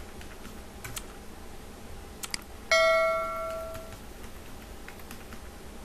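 A single bright bell chime, a ding that rings out and fades over about a second, about two and a half seconds in, with a few faint clicks before it. It is the notification-bell sound effect of an animated subscribe button.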